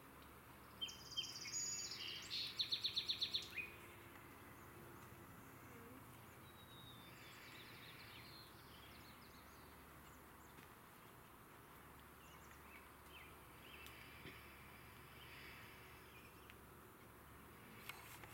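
A songbird sings one short phrase about a second in: a few high notes, then a quick run of about eight clipped notes. After that only faint, scattered bird chips over low steady background noise.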